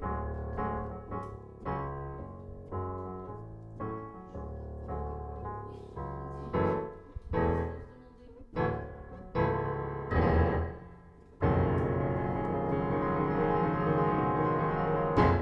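Closing piano music: a series of separately struck notes and chords, then a long held chord over the last few seconds.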